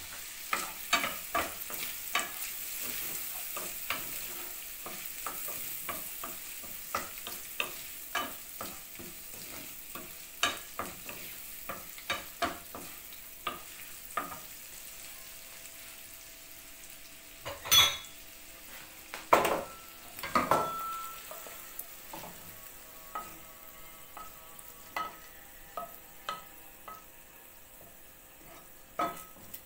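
Shrimp sizzling in a nonstick frying pan while a wooden spoon stirs them, clicking and scraping against the pan, with a few louder knocks a little past halfway. The sizzle fades slowly.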